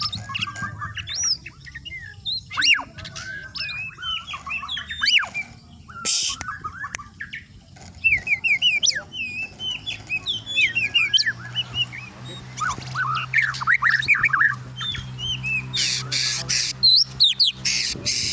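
Bornean white-rumped shama singing a long, varied song of whistles, quick trills and pitch glides, with harsh chattering bursts around six seconds in and again near the end; the song mimics lovebird and canary calls.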